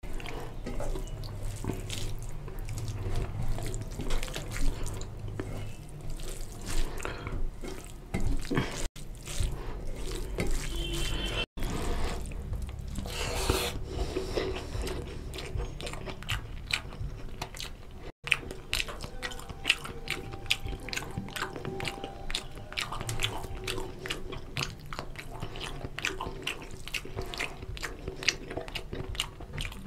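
Close-miked wet squelching and clicking of a hand mixing rice into oily curry on a steel plate, with mouthfuls being chewed.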